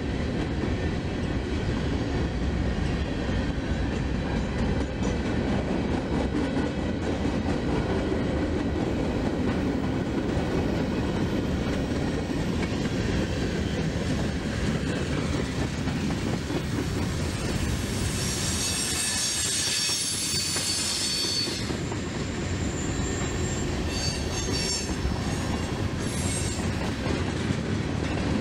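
Freight cars rolling past close by, a steady rumble and clatter of wheels on rail. About two-thirds of the way through the wheels squeal, a high shriek lasting a few seconds, with shorter squeals soon after.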